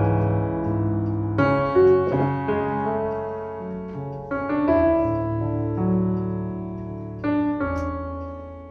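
Slow, gentle solo piano music: soft chords struck every second or two, each left to ring and fade.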